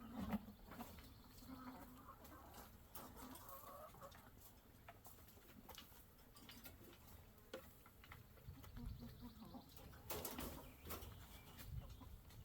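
Chickens clucking softly, with a few small knocks and rustles. Louder calls come near the start and again near the end.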